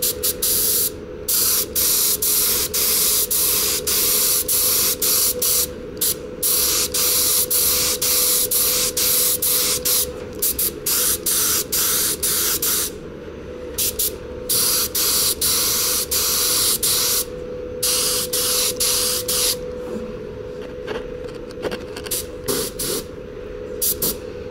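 A gravity-feed paint spray gun hissing in repeated bursts as the trigger is pulled for each pass and released between them. A steady hum runs underneath.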